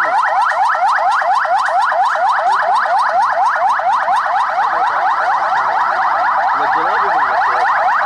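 Electronic police siren on SWAT pickup trucks sounding a fast yelp: quick rising sweeps repeating about six times a second.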